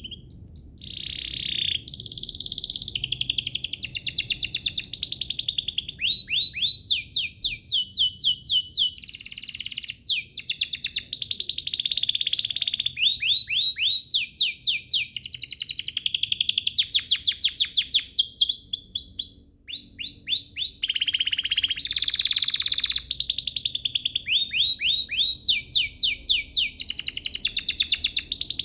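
Domestic canary singing a long, continuous song of rapid trills, each phrase a quick run of repeated notes before switching to the next, with one short pause.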